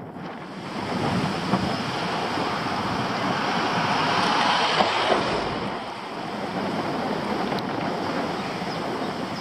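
Wind rushing over a head-mounted camera's microphone on a moving e-bike, a steady roar of wind noise that swells around the middle as an oncoming minibus passes.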